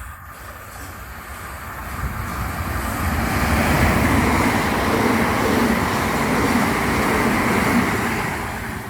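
Electric passenger train running through the station at speed without stopping. Its rushing rumble builds over the first few seconds, stays loud, and eases off near the end as the train passes.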